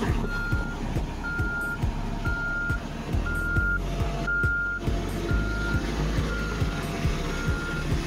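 Reversing alarm of a heavy road-construction vehicle at an asphalt paving job: a steady single-tone beep, about half a second long, sounding about once a second, over the low rumble of a running engine.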